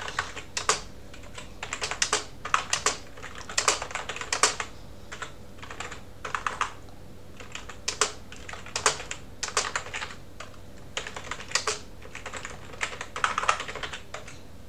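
Typing on a computer keyboard: irregular runs of quick keystroke clicks broken by short pauses.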